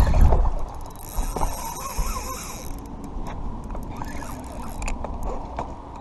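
Spinning reel being cranked to reel in a hooked fish: its gears turn with a run of fine, rapid clicks, and a brief higher buzz comes from about one to nearly three seconds in. A low rumble on the microphone comes in the first half-second.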